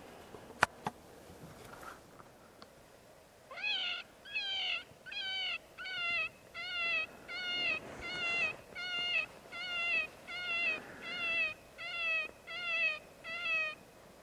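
A predator call sounding a distress cry over and over: about fifteen short, pitched cries, each bending down in pitch, roughly one and a half a second, starting about three and a half seconds in. A single sharp click comes shortly before, near the start.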